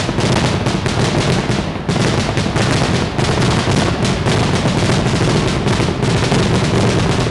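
Fireworks barrage: a dense, continuous volley of rapid bangs and crackles with no pauses.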